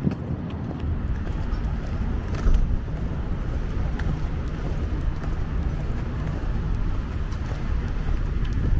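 City street traffic: a steady low rumble of cars passing on the road, with light scattered taps of footsteps on the sidewalk.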